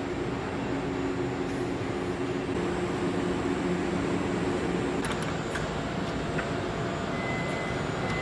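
Steady industrial machine hum with a low drone, and a few sharp metallic clicks in the second half.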